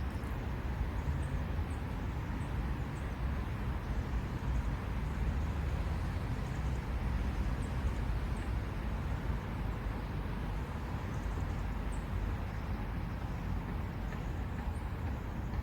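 Steady low outdoor rumble, with a few faint high ticks scattered through.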